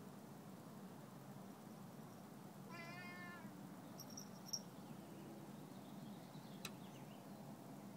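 A cat meowing once, faintly, about three seconds in. A short high chirp follows a second or so later.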